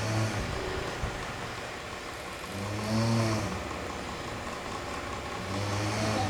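A person snoring: a low, pitched snore about every three seconds, three in all, over a steady background noise.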